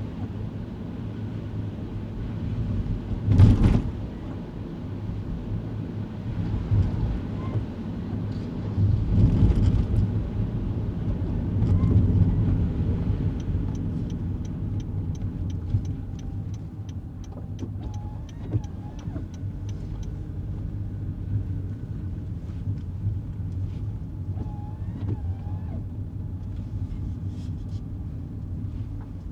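Kei car driving, heard from inside the cabin: steady engine and road rumble, with a sharp bump about three seconds in. Partway through comes a run of even, quick ticks, about three a second, lasting some six seconds.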